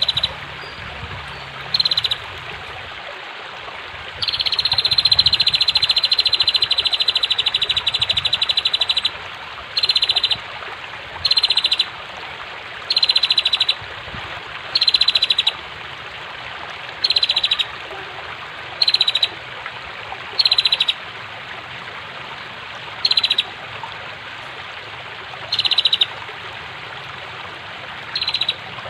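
Female prenjak (bar-winged prinia) calling over the steady rush of flowing water. The calls are short, rapid ticking trills repeated about a dozen times, every one to three seconds, with one long unbroken trill of about five seconds some four seconds in.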